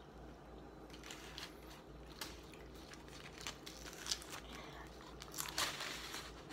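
Quiet crunching as a hard-shell taco is bitten and chewed, mixed with paper wrappers crinkling: a scatter of short crackles with a denser burst about five and a half seconds in.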